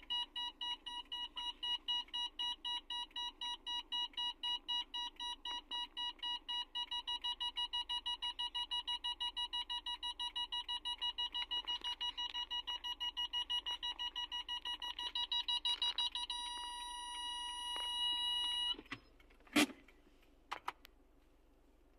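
Car's reverse parking-sensor beeper sounding while backing up. The beeps come faster as the car nears the obstacle behind and turn into one solid tone when it is very close. The tone then cuts off and is followed by a sharp click.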